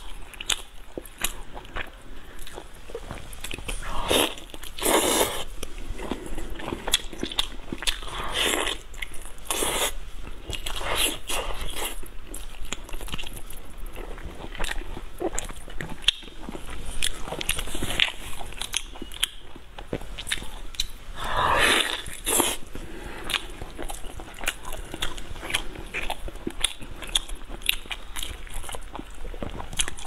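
Close-miked eating sounds: wet chewing, smacking and mouth clicks as cooked meat is chewed, with a few longer noisy bursts now and then.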